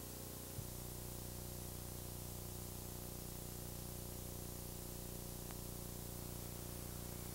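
Faint steady hiss and electrical hum of an old analogue video recording, with one small click about half a second in.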